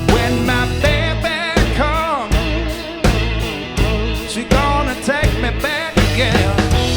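A rock band playing live, with a lead line wavering and bending in pitch over a heavy low end.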